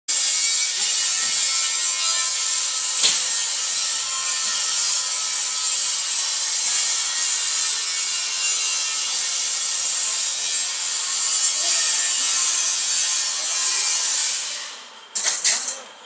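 Steady, high-pitched hissing whir of workshop machinery, with a single knock about three seconds in. The whir dies away near the end, leaving a few sharp clicks.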